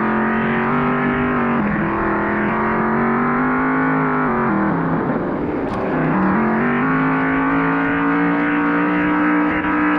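Simulated V8 car engine sound from a smartphone app, played through a speaker and revving up and down with the pedalling. The engine note wavers, drops low about five seconds in, then climbs steadily again.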